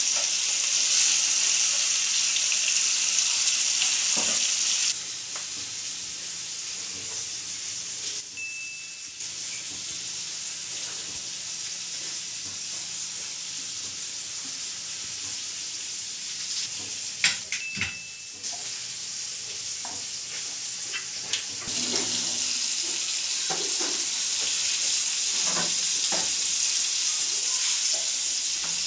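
Battered chicken pieces shallow-frying in hot oil in a frying pan: a steady sizzle. About five seconds in it drops to a quieter hiss, with a few sharp clicks from utensils, and the louder sizzle comes back for the last part.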